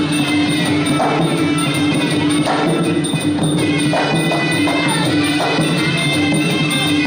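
Traditional Kun Khmer fight music: a reed pipe holds a steady note over drum and small-cymbal strikes.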